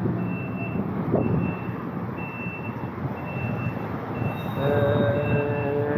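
Vehicle reversing alarm beeping about once a second over a steady engine rumble. From about four and a half seconds in, a louder steady pitched drone joins.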